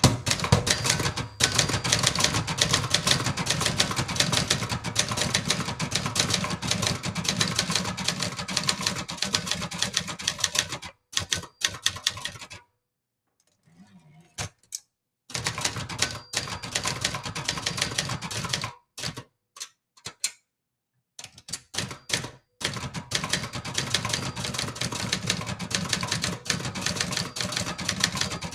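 Vintage 1960s Brother Charger 11 manual portable typewriter being typed on quickly: a rapid clatter of keystrokes and typebars striking the platen. About halfway through the typing stops for a couple of seconds while the carriage is returned by its lever. It starts again in scattered strokes, then settles back into fast continuous typing.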